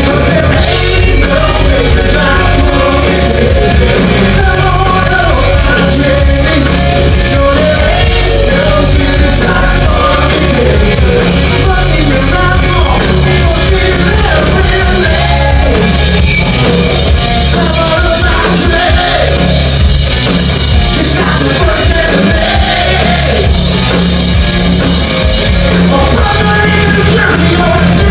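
Live rock band playing loud: a lead singer over electric guitar, bass guitar and a drum kit.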